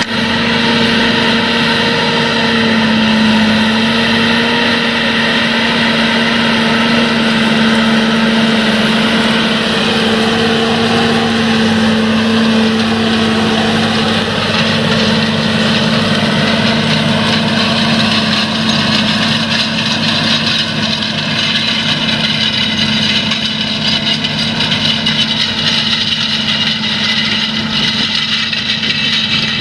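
John Deere 8345R tractor's diesel engine running steadily under the load of a tillage implement being pulled through stubble, with a slight waver in engine pitch about ten seconds in.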